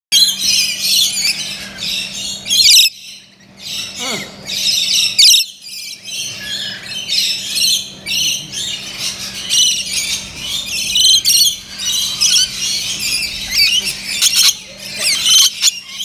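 Rainbow lorikeets chattering and screeching in a dense, continuous stream of high-pitched calls, with louder bursts of screeching every few seconds. A faint steady low hum runs underneath.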